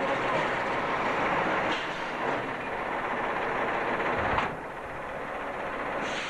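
Heavy truck running as it slowly manoeuvres a loaded container semi-trailer, a steady diesel rumble with a single knock about four seconds in, after which the sound turns a little quieter.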